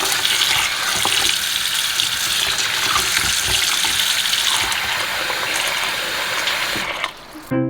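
A tap running steadily into a sink, shut off about seven seconds in; music starts right after.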